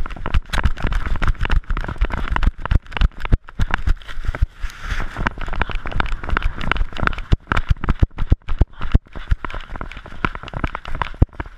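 Rapid, irregular knocking and scuffing from a GoPro hung on a running pit bull's neck, the camera case bumping against the dog and its collar with each stride.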